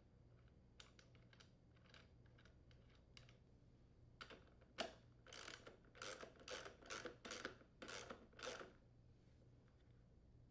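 Socket wrench with a 9/16-inch socket clicking as it tightens a lawn mower rear wheel's mounting nut. Light scattered clicks come first, then a run of louder, quick clicking strokes about halfway through.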